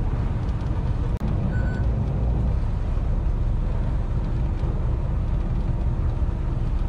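Fishing boat's machinery running with a steady low rumble, briefly cutting out for an instant about a second in.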